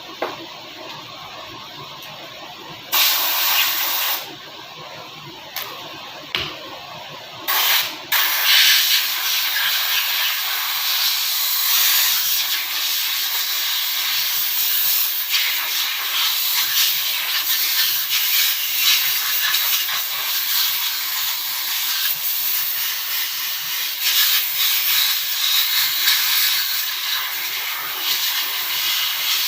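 A loud hissing jet, in several short blasts and then held on steadily from about eight seconds in.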